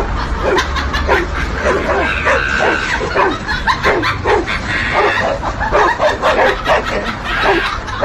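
Dogs barking fast and without pause, several barks a second.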